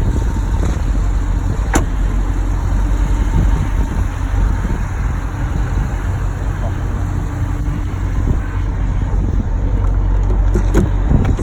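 Dodge Durango SRT's 392 Hemi V8 running, a steady low rumble, with a single sharp click about two seconds in.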